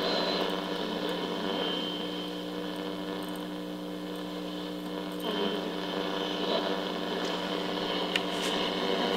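1964 Star-Lite FM-W200 vacuum tube radio playing on AM after its alignment, giving a steady hum with a hiss of static while the broadcast voice is faint or absent.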